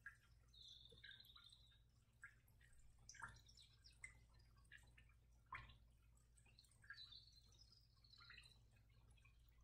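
Near silence: room tone with a steady low hum, faint scattered ticks and a couple of faint high chirps.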